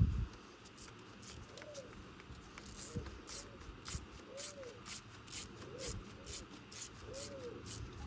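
Light, irregular metallic clicking and rubbing from hand tools being worked in a diesel engine bay, a few clicks a second. A pigeon coos repeatedly in the background, in short arching calls.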